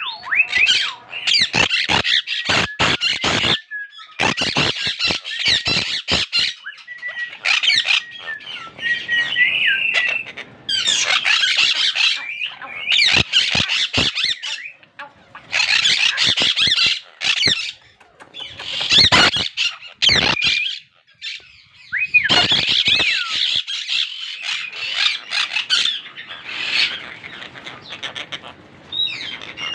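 Monk parakeets screeching harshly in bout after bout with short gaps, a few gliding whistled notes among them: the angry alarm calls of breeding birds while their nest pot with chicks is disturbed.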